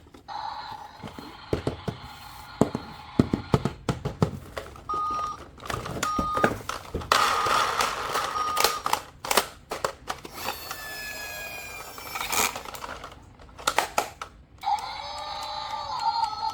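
Electronic sound effects from a battery-powered toy vehicle: steady tones, two short beeps, a burst of noise and a falling electronic sweep, with many sharp clicks and taps of plastic being handled.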